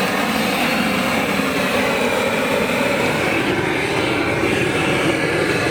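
Propane roofing torch burning with a steady loud rush, heating torch-on bitumen felt to melt it down onto the roof.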